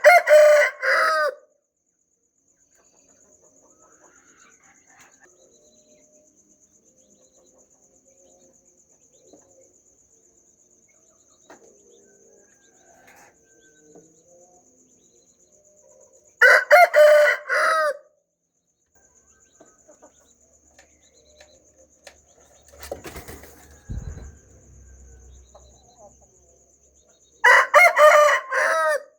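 Rooster crowing three times, each cock-a-doodle-doo lasting about a second and a half: once at the start, again about halfway through and once more near the end. A steady high-pitched trill runs between the crows, and a dull low knock comes shortly before the last crow.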